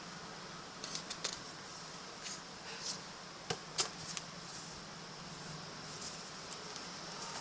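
Short rustles and light clicks from a photobook and its packaging being handled, over a steady low hum. The loudest clicks come around three and a half to four seconds in.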